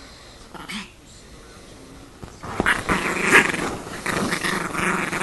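Chihuahua growling continuously as it goes at a person's hand, starting about two and a half seconds in.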